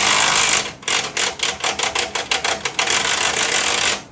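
Air-powered wrench running loud on a truck's suspension bolts. It runs in a steady burst, stops briefly, then pulses about seven times a second as the trigger is feathered, then runs steadily again and cuts off just before the end.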